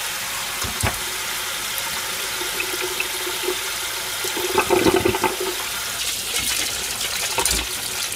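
Kitchen tap running steadily into a stainless-steel sink, the stream splashing over hands that peel a boiled egg under it. There is a short knock about a second in, and the splashing gets louder for about a second around the middle.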